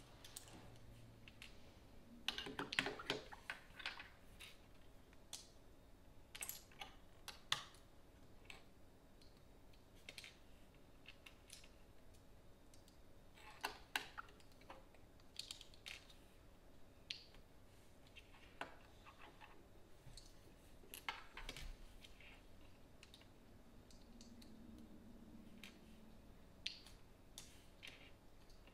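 Scattered light clicks and clatter of plastic LEGO pieces being handled and snapped together on a tabletop, with a busier run of clicking a couple of seconds in and single sharper clicks every several seconds.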